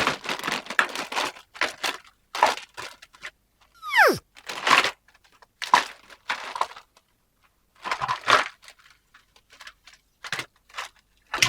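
Plastic packaging crinkling and tearing in short bursts as toys are unboxed, with one quick whistle falling sharply in pitch about four seconds in.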